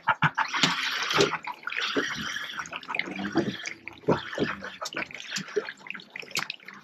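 Water splashing and sloshing in irregular bursts, with a few sharp knocks in between.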